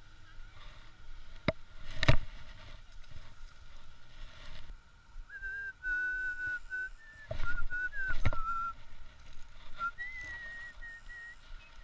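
A person whistling a short, wavering tune in two phrases, the first from about halfway in and a higher one near the end. Two sharp clicks come a couple of seconds in.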